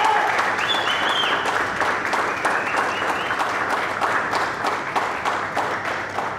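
Audience applauding, a dense run of clapping that begins to die away near the end.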